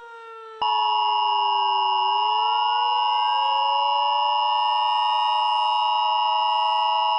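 Emergency Alert System two-tone attention signal: a loud, steady two-pitch tone near 1 kHz starting about half a second in. Under it, a siren-like tone slowly falls in pitch, then rises again from about two seconds in.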